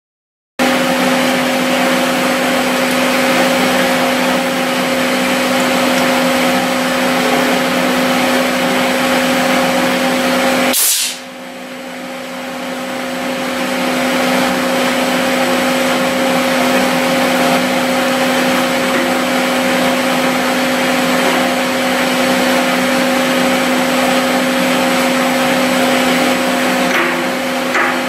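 Gardner Denver air compressor running, a loud steady hum over a hiss. About eleven seconds in the sound drops sharply and builds back over a few seconds.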